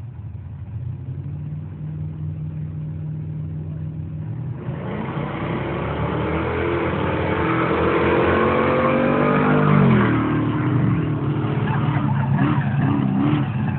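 A car engine runs steadily low, then about four and a half seconds in a street-race car accelerates hard, its engine pitch climbing for several seconds. The pitch drops sharply as it passes, about ten seconds in, the loudest moment.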